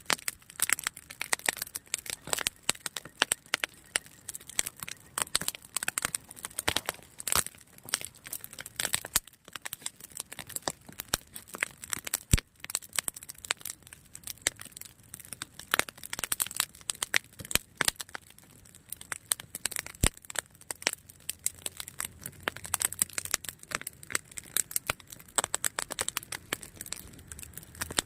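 Wood campfire crackling, a steady run of irregular pops and snaps, with a couple of sharper snaps standing out.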